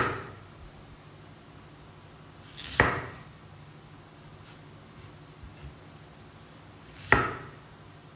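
Large kitchen knife slicing through a raw peeled potato and knocking onto a thick wooden chopping block, three slow cuts a few seconds apart, each a short build-up ending in a sharp knock.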